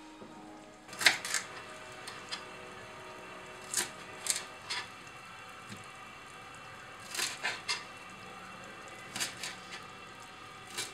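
Kitchen knife cutting celery on a cutting board: sharp, irregular knocks in small clusters of two or three, about a dozen in all.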